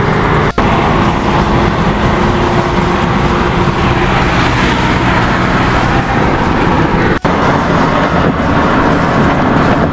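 Steady highway driving noise from cars at speed: tyre and wind roar with an engine hum underneath. The sound drops out briefly twice, about half a second in and about seven seconds in.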